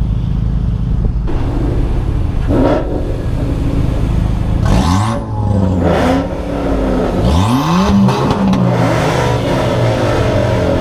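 Ford Mustang's three-valve V8 with aftermarket exhaust and intake, running steadily, then accelerating hard with its pitch climbing. The pitch drops at a gear change about six seconds in and climbs again.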